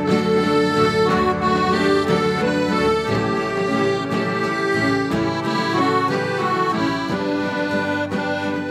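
Instrumental background music: a tune played over held chords.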